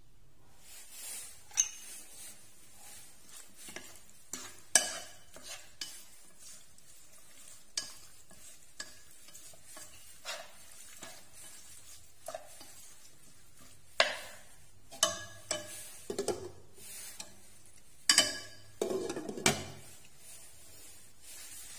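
Spoon stirring and scraping against the side of a metal pot while mixing raw marinated pork belly: scattered clinks and scrapes, busier in the second half.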